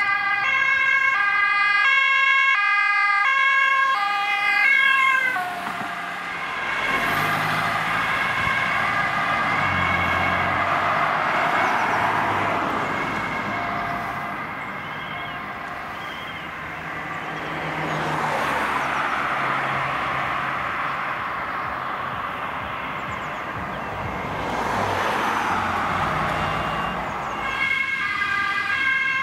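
Ambulance two-tone siren alternating between two pitches at close range, dropping away sharply about five seconds in as the vehicle passes. It stays faint under the rushing noise of passing traffic, which swells and fades several times. The two-tone siren comes back loud near the end.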